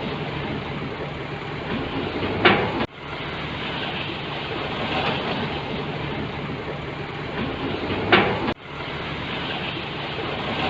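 Heavy construction machinery running steadily with a low engine hum. A loud clank comes about two and a half seconds in and again near the end, and each time the sound cuts out sharply and builds back up.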